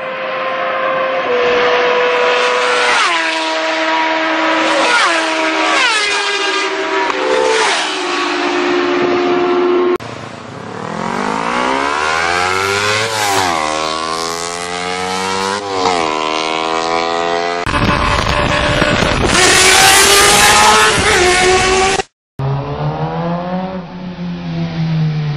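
Four-cylinder sportbike engines revving hard in a series of separate clips. First a bike accelerates through the gears, its pitch climbing and dropping at each upshift. Then bikes pass at wide-open throttle with the pitch sweeping up and falling away, and after a sudden cut another bike revs as it comes along a street.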